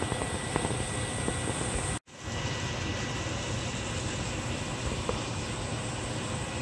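Seasoned meatloaf slices sizzling in oil in a frying pan: a steady crackling hiss with a few small pops. The sound cuts out for an instant about two seconds in.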